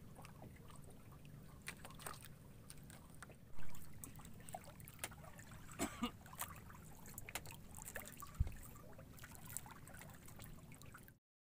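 Small waves lapping and trickling against the hull of a wooden outrigger canoe, over a low steady rumble, with scattered small knocks and clicks. The sound cuts off abruptly near the end.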